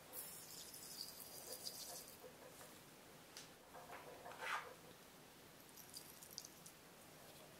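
Granulated sugar poured from a small glass dish into milk in a glass mixing bowl, a soft hiss in the first two seconds. Then half a teaspoon of salt is added, with a short knock about halfway through and a brief sprinkle near the end.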